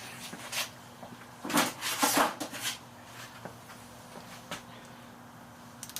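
Small nylon zip tie being pulled tight around bicycle cable housing: a quick run of short ratcheting zips about one and a half to two and a half seconds in, then a few faint clicks of handling.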